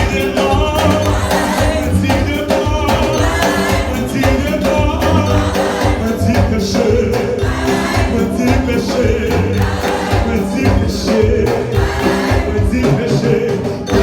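Gospel music: a choir singing over a steady rhythmic accompaniment.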